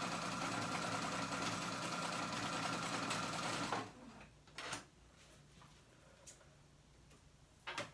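Domestic sewing machine running steadily as it sews a long basting stitch, then stopping suddenly about four seconds in. A few faint clicks follow.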